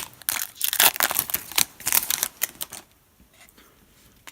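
Foil trading-card pack wrapper crinkling and tearing as it is ripped open by hand, a rapid run of crackles that stops about three seconds in.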